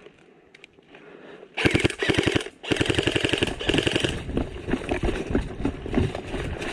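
Airsoft gun firing on full auto: a fast rattle of shots in two bursts of about a second each, starting about a second and a half in, then lighter irregular knocks.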